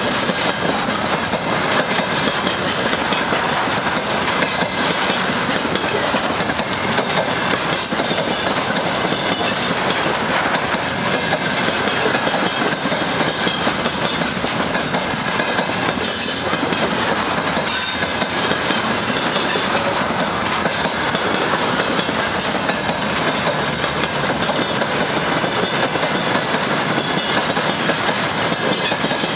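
Container flat wagons of a long freight train rolling past close by: the steady rumble and rattle of many steel wheels running over the rails, with a few brief high-pitched squeaks mid-way through.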